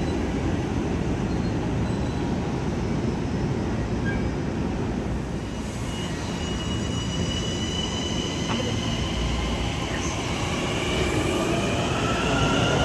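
Long Island Rail Road train running through the station with a steady rumble on the rails. High-pitched whining tones come in about halfway and rise in pitch toward the end.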